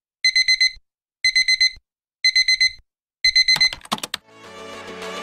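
Electronic wake-up alarm beeping: quick bursts of about four high beeps, one burst each second. It stops about four seconds in with a few sharp clicks, and music fades up.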